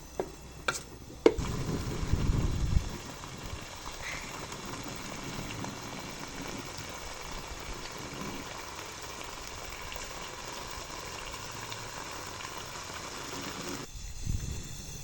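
A few sharp knocks, then a clatter as food goes into hot oil and a steady sizzle of frying. The sizzle cuts off suddenly near the end.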